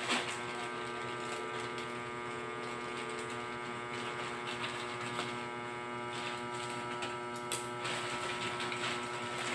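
A steady electrical hum made of several fixed tones, with a few brief rustles as a parcel's packaging is handled, the clearest about three-quarters of the way through.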